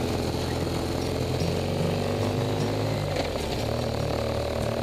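BMW R1200GS flat-twin boxer engine running steadily while the motorcycle rides along, under a steady rush of wind. The engine note rises a little near the end.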